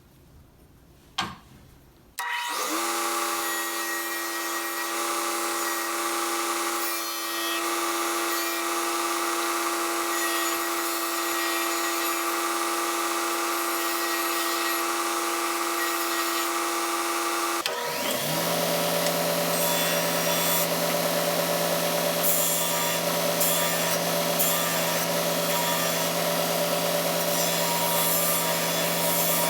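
An electric power tool starts about two seconds in and runs steadily, cutting the bevel and radius into a wooden guitar tail block. About two-thirds of the way through, the running sound switches abruptly to a lower hum.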